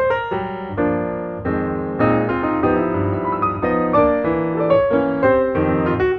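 Background piano music, a run of notes played at a lively pace.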